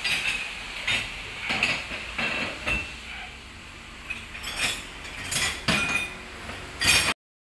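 Irregular sharp metallic clinks and knocks of steel tools and parts being handled during a bus repair, about ten in all, some with a brief ring. The sound cuts off suddenly near the end.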